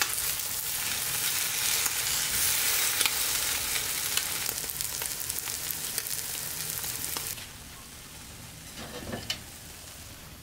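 French toast sizzling as it fries in a frying pan, with light clicks of metal tongs turning the slices. About seven seconds in the sizzle falls away to a quieter hiss, with a small knock near the end.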